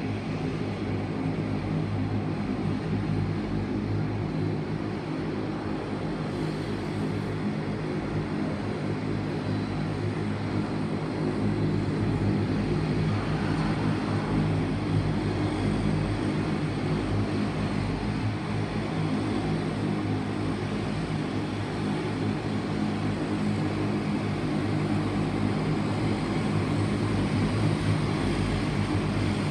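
A De Havilland Canada Dash 8-300's two Pratt & Whitney Canada PW123 turboprops and propellers running at taxi power. The drone is steady, with a stack of low tones, and grows a little louder as the aircraft taxis closer.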